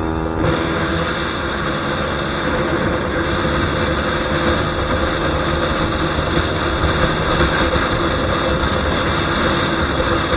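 KTM Duke 125's single-cylinder four-stroke engine running steadily at speed, under heavy wind noise on the microphone.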